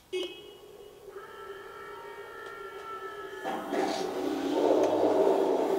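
Henglong RC tank's onboard sound unit restarting: after a click, steady electronic tones play, and from about three and a half seconds a louder simulated tank engine running sound builds up.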